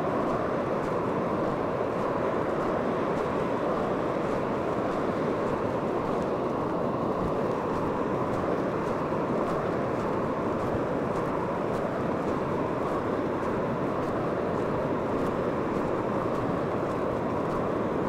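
Steady rushing noise of wind and ocean surf, holding level and unbroken throughout.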